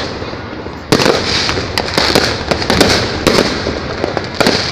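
Fireworks display: after a brief quieter lull, a sudden loud bang about a second in sets off a dense, continuous barrage of bangs and crackling.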